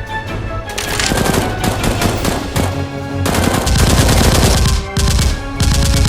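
Rapid automatic-gunfire sound effects over background action music, starting about a second in, with a short break near five seconds.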